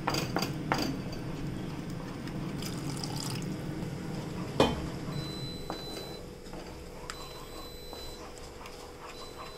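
Spatula stirring thick cheese sauce in a nonstick pan: soft wet stirring sounds with a few sharp clicks of the spatula against the pan, the loudest about halfway through.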